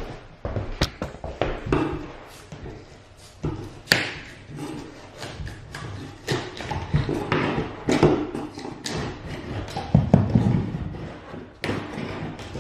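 Pry bar prying wooden baseboard off a wall: irregular knocks, taps and scrapes of metal on wood, with a sharp crack about four seconds in and a cluster of heavier knocks near the end.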